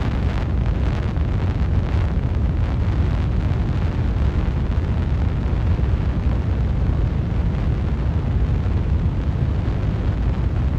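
Steady, loud, low rumbling noise with no clear strokes or tones.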